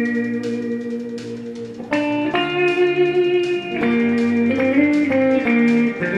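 Music: electric guitar holding notes and chords, changing chord about two seconds in and again near four seconds, over a steady light beat.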